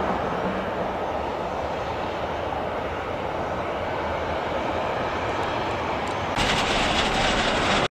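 Jet airliner engine noise, a steady broad rush. A little over six seconds in it turns abruptly louder and harsher, and it cuts off sharply at the end.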